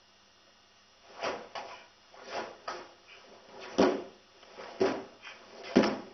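A karate kata performed barefoot on a wooden floor: after a quiet second, about eight sharp snaps and thuds in uneven groups as the gi cracks with each technique and the feet step and slap on the boards. The loudest hits come near the middle and end.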